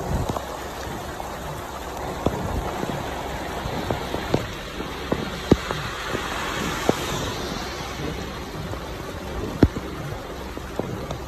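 Heavy rain falling, heard from inside a vehicle: a steady hiss with scattered sharp taps of drops striking the car.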